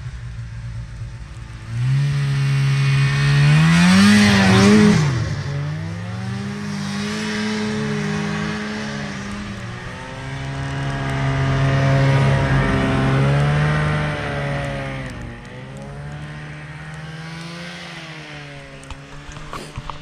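Snowmobile engine revving as it drives through deep snow, its pitch rising and falling with the throttle. It swells about two seconds in, peaks around four to five seconds, swells again around twelve seconds and then fades.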